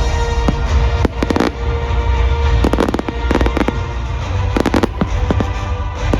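Fireworks bursting in clusters of rapid crackles and bangs about every second, over music playing underneath.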